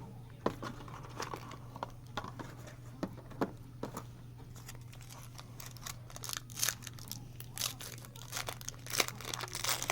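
Trading-card pack wrapper being torn open and crinkled while the cards inside are handled: irregular crackles and rustles, busier in the second half.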